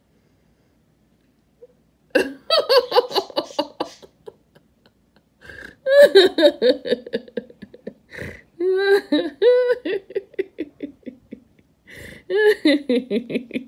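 A woman laughing hard in fast, breathless, hiccup-like bursts, starting about two seconds in, with a few high squealing notes in the middle.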